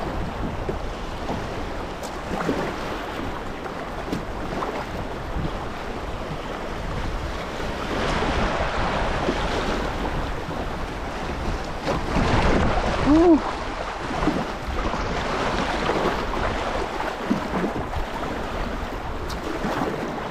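Fast, high river water rushing and churning around a plastic kayak running rapids, with paddle strokes splashing and wind buffeting the microphone. The rush swells louder through the middle, with one brief pitched sound, loudest of all, about two-thirds of the way in.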